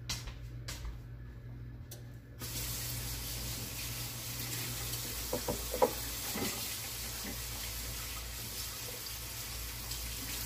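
Kitchen tap turned on about two and a half seconds in, water running steadily into the sink, with a few light clinks midway.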